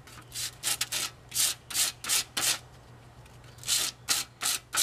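Steel saw plate of an E.C. Atkins handsaw being hand-sanded to take off rust: quick back-and-forth scrubbing strokes of abrasive on metal, about two or three a second, with a pause of about a second in the middle.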